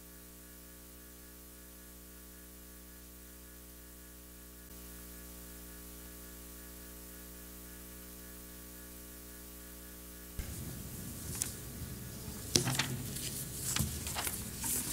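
Steady electrical mains hum, a stack of even, unchanging tones. About ten seconds in the room noise rises and a few sharp clicks and knocks follow, from handling at the lectern microphone.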